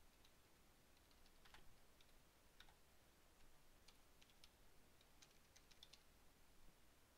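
Faint, irregular keystrokes on a computer keyboard, typing a line of text.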